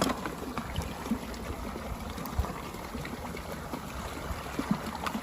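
Water running fast through a rocky drainage channel, a steady rush with occasional small knocks.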